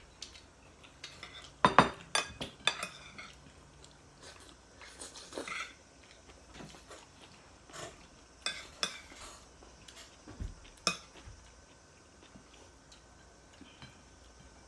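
Metal cutlery clinking and scraping on ceramic plates and bowls while people eat, in scattered sharp clicks, loudest about two seconds in.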